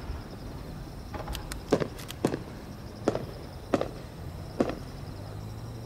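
Fireworks display between large shell bursts: a string of sharp, scattered firework pops, about eight in a few seconds, over a steady low background.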